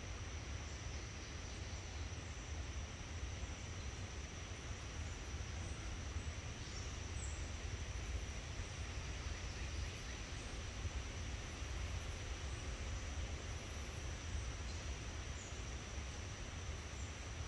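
Forest ambience: a steady high-pitched insect trill over a constant low rumble, with a few faint, short high chirps scattered through.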